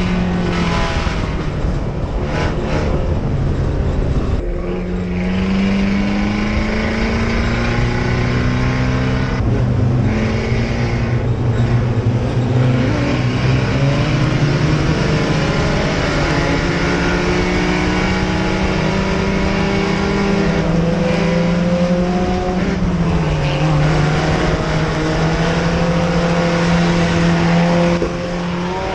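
Mini stock race car's four-cylinder engine heard from inside the cockpit under racing load, its note repeatedly rising and falling as the driver comes on and off the throttle. There is a clear dip and climb about four seconds in and another dip later on.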